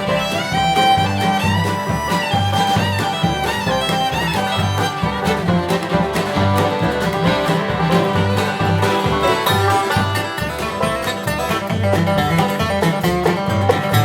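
Bluegrass-style string band playing an instrumental passage: a fiddle carries the melody over banjo and guitar, with a steady bass beat.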